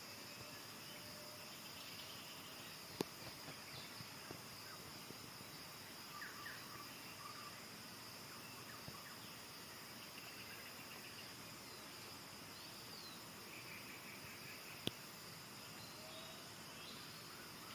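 Faint forest ambience dominated by a steady high-pitched insect drone, with a few short faint chirps scattered through it. Two sharp clicks stand out, one about three seconds in and one near the end.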